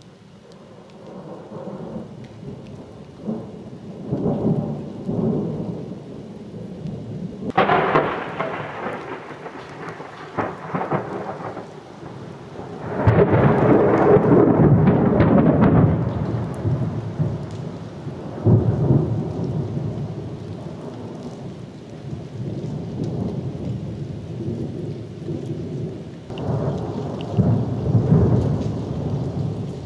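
Thunder rolling in a series of long rumbles, one beginning with a sudden crack about a quarter of the way in and the loudest swelling just before the middle, over steady rain.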